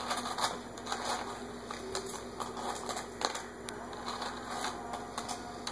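A small hand rummaging in a clear plastic food tub of cookies: irregular light clicks, taps and rustles against the plastic, with a faint steady low hum underneath.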